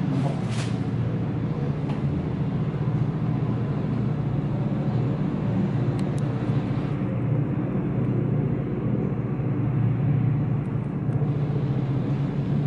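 Air-cooled Suzuki engine of a Segale race bike idling steadily.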